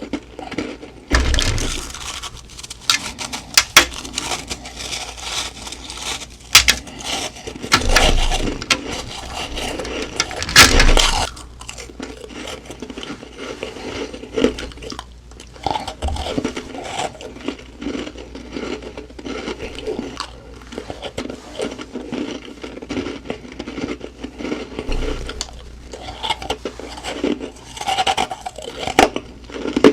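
Humidifier frost (soft, powdery ice) being bitten and chewed close to the microphone: a series of crunches, with a few big crunching bites in the first half and steadier, smaller crackling chews after.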